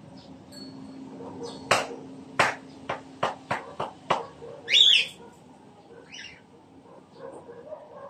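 Pet cockatiel calling: a quick run of about seven sharp taps, then one loud short chirp about five seconds in and a softer chirp about a second later.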